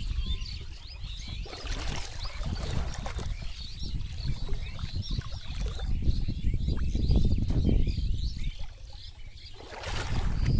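Water sloshing as a person wades through a shallow pond, with small birds chirping throughout. A louder splash of churned water comes near the end as he strides on.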